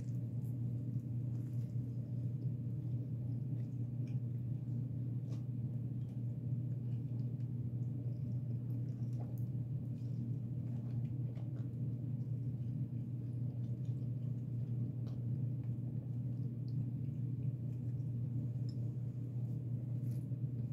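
A steady low hum with faint, scattered small clicks and smacks from someone biting and chewing a soft-bun fish sandwich.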